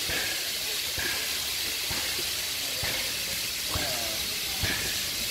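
A steady hiss with a regular low knock repeating a little more than once a second, the beat of a slow-running engine. Faint voices underneath.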